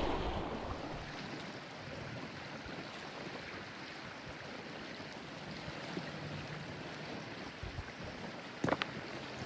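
Steady rushing of river water and wind, with wind buffeting the microphone in the first second. A few sharp knocks near the end.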